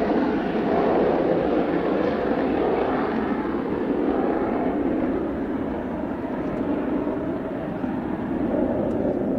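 Mitsubishi F-2B fighter's single F110 turbofan running in afterburner, a continuous jet roar slowly receding as the aircraft climbs away, its higher, hissing part gradually dying down.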